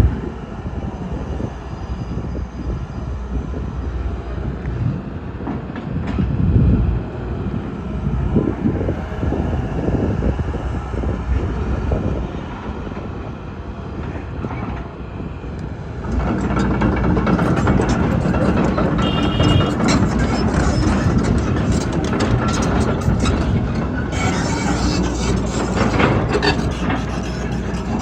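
John Deere 225D LC excavator working, its diesel engine and hydraulics running under load. From about sixteen seconds in it gets louder, with repeated metal clanks and scraping as the bucket digs into bricks, dirt and concrete. There is a brief high squeal around twenty seconds.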